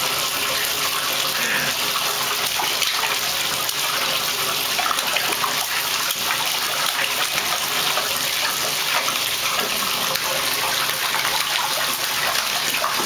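Steady rush of water running from a bathtub faucet, with a baby's hands splashing in the water of a plastic infant tub.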